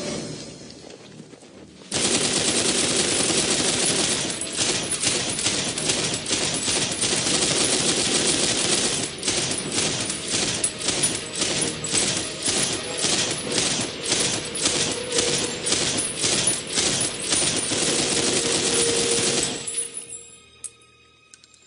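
Belt-fed machine gun firing in a long, unbroken burst that starts suddenly about two seconds in. About halfway through it breaks into a rapid run of short bursts with brief pauses between them, and stops a couple of seconds before the end.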